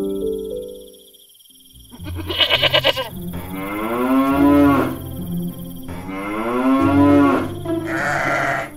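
Farm animal calls dubbed over the scene: a short, trembling goat bleat about two seconds in, then a cow mooing twice in long, drawn-out calls.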